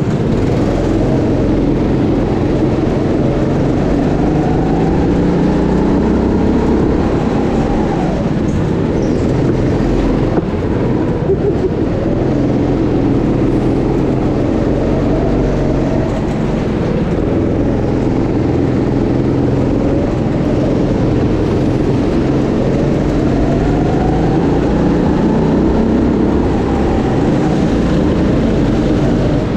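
Go-kart engine running hard, heard from the driver's seat. Its pitch rises and falls again and again as the kart accelerates and slows.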